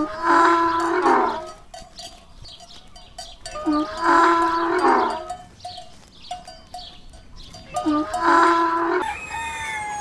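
Three loud calls from a large farm animal, each about a second long and about four seconds apart, with short bell-like clinks between them.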